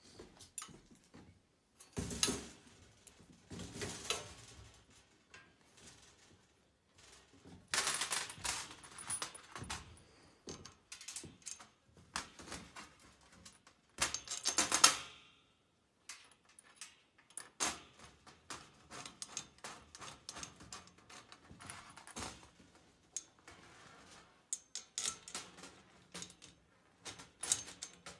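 Metal clinking and rattling of nuts, bolts and wire cage parts being handled and fitted together, in irregular bursts with the loudest rattle about halfway through, then quick runs of small clicks.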